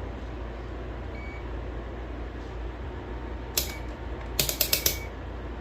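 Ratcheting clicks of a multimeter's rotary selector dial being turned through its positions: one sharp click, then a quick run of about five clicks near the end.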